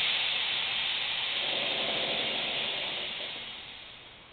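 Compressed air hissing out of the truck's front air shocks as they are let down. The hiss is loud at first and fades over about four seconds as the pressure drops.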